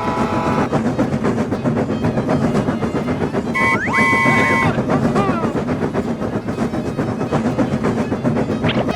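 A train running with a steady rumble and clatter of wheels on rails. A horn sounds for about a second a little over a third of the way in, and a short rising whistle-like glide comes near the end.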